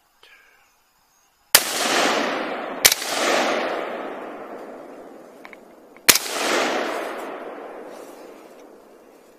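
Three rifle shots fired in woods, the first two about a second and a half apart and the third about three seconds later, each followed by a long rolling echo that fades over several seconds.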